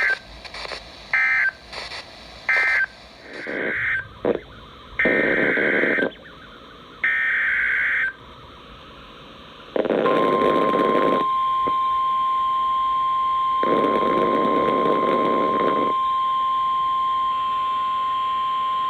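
Emergency Alert System SAME data bursts, harsh buzzing chirps: three short ones close the previous warning, and three longer ones about a second apart open the next. They are followed by the NOAA Weather Radio 1050 Hz attention tone, one steady pitch held for about nine seconds with two stretches of static behind it, signalling an incoming severe thunderstorm warning.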